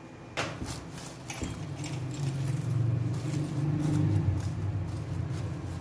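Plastic cling film crinkling and crackling as it is stretched and pressed down over a steel plate. A low hum swells under it through the middle and eases off near the end.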